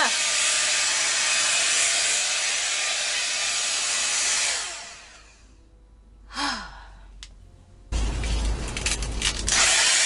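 Hot air brush styler blowing steadily, then switched off about four and a half seconds in, its noise dying away over about a second. A short sigh follows, then rustling and low bumps of handling near the end.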